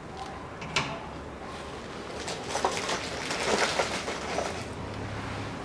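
Hand handling of blind (pop) rivets while they are pushed into the holes of a body-tub corner bracket: a sharp click about a second in, then a couple of seconds of rustling and small clinks around the middle.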